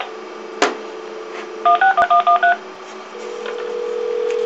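Cordless telephone placing a call: a steady dial tone, then a quick run of touch-tone (DTMF) beeps as the number is keyed in about two seconds in, followed from about three seconds in by the steady ringback tone of the line ringing.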